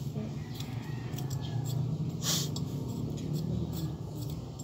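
Small clicks and plastic rustling from items handled at close range, with one short sharp rustle about two seconds in, over a steady low hum.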